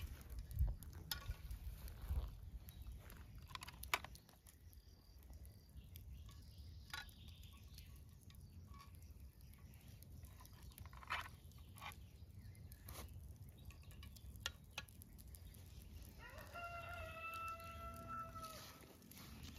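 Scattered light clinks and knocks of metal kebab skewers being handled over a charcoal grill. Near the end a rooster crows once, a single held call of about two and a half seconds.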